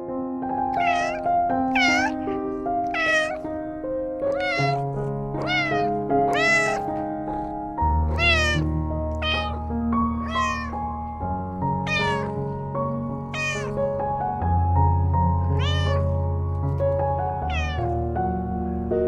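An animal calling about a dozen times, each call short and rising then falling in pitch, over soft, steady piano music.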